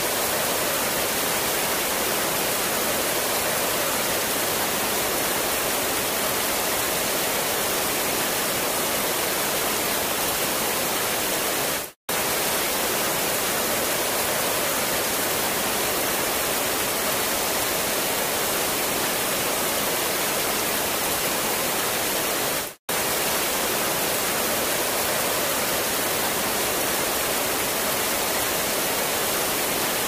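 Small cascading waterfalls pouring into a rocky pool: a steady, even rush of falling water. The sound cuts out for a moment twice, about twelve seconds in and again a little before the two-thirds mark.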